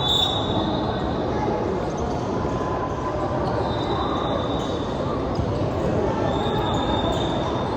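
Basketball game noise in a gym: a ball bouncing on the court over steady crowd chatter, with three short high-pitched squeaks, near the start, about four seconds in and near the end.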